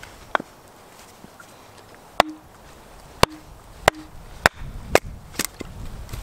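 Hatchet splitting a short firewood log stood on bare rock: about seven sharp, irregularly spaced knocks as the blade is driven in. The log splits apart near the end.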